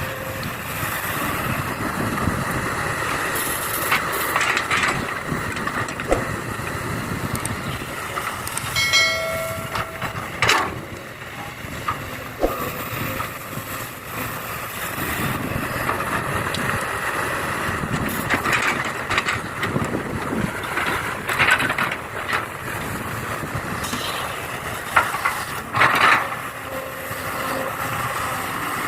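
Radio-controlled model excavator and dump truck working: a steady motor-and-gear whir with scattered clicks, knocks and scraping of soil, and a short beep about nine seconds in.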